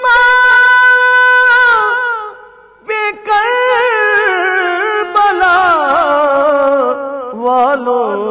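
A naat, an Urdu devotional song, sung by a solo voice. It holds one long high note for about two seconds, dips briefly, then moves through a long run of ornamented, wavering notes stretched over a single line of the lyric.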